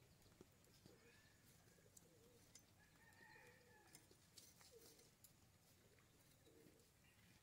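Near silence: faint bird calls a few times, with a few faint scraping clicks as small fish are scaled against a boti blade.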